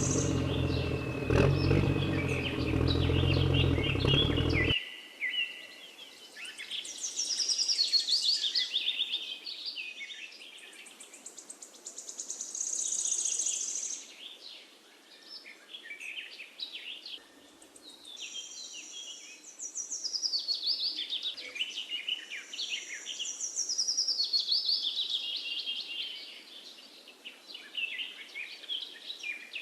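Small birds chirping and trilling in quick repeated phrases, in waves that swell and fade. For the first few seconds a low steady hum with several held tones runs underneath, then cuts off suddenly about five seconds in.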